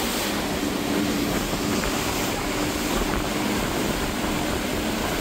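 Speedboat running at speed across open water: a steady engine drone under a loud, even rush of wind and water.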